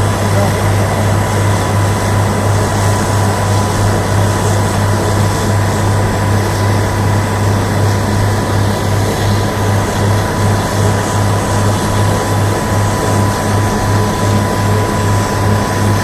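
Several drilling machines running together with a loud, steady mechanical noise. A low throb pulses evenly about two to three times a second, with a thin steady whine above it.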